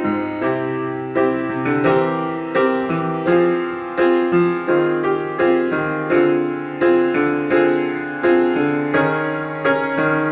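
Solo piano playing a choral song's accompaniment: a steady, even flow of notes over held bass chords, the notes ringing on into each other under the sustain pedal.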